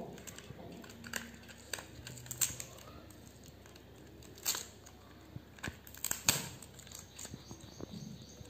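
Small cardboard lipstick carton being handled and opened by hand: scattered light clicks and scrapes of paperboard, with a few louder crackles around the middle.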